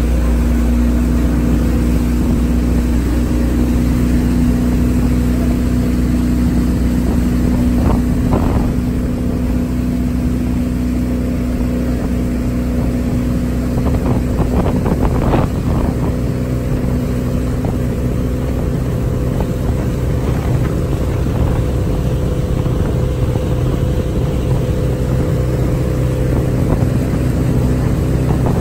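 Motorboat engine running steadily at towing speed, with water rushing in the wake and wind on the microphone; brief louder bursts of noise come about eight and fifteen seconds in.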